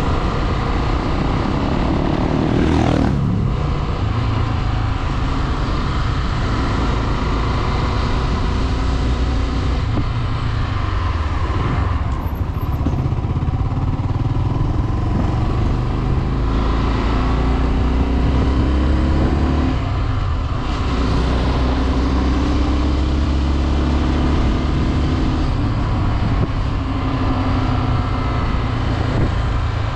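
Low-displacement motorcycle engine running under way, its note rising and falling with the throttle, with a sharp drop in pitch about three seconds in and another dip near twenty seconds, over a steady low rumble.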